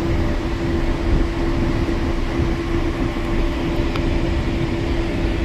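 Steady low mechanical rumble with a constant droning hum, like engine or vehicle noise.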